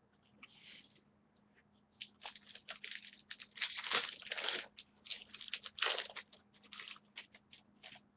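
A trading-card pack wrapper being torn open and crinkled, with cards handled: a run of short, uneven crackles that starts about two seconds in and is loudest in the middle.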